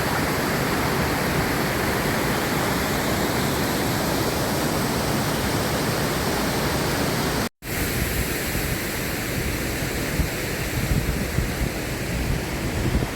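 Steady rush of a waterfall pouring over a cliff. About seven and a half seconds in it cuts off sharply and gives way to sea surf with gusty wind buffeting the microphone.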